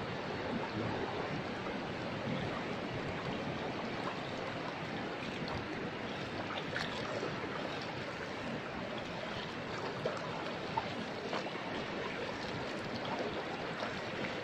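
Steady rush of moving water, an even wash of noise with a few faint clicks.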